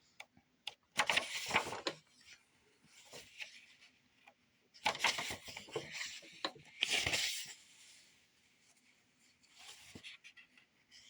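Pages of a book being turned and leafed through: several bursts of paper rustling, with small clicks and taps between them.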